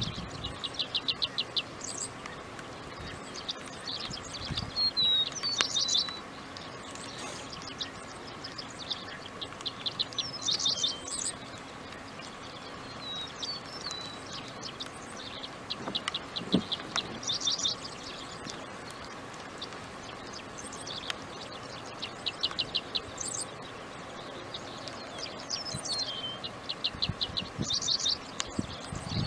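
A songbird singing the same short phrase over and over, about every five or six seconds: a few chirped slurs followed by a fast, dry trill.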